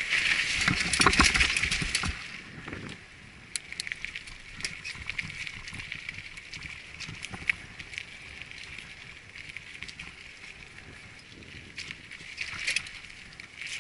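Mountain bike rolling down a rocky dirt trail: tyres crunching over gravel and stones, with scattered rattles and clicks from the bike. Loudest and roughest in the first two seconds, then a lighter steady hiss with sharp ticks.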